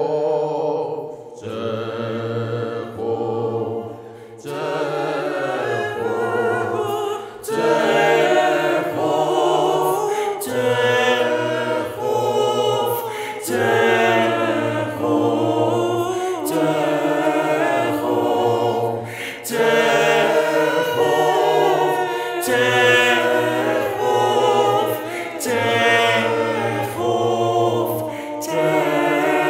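Choral music: a choir singing slow, sustained chords that change every two seconds or so, growing louder after the first few seconds.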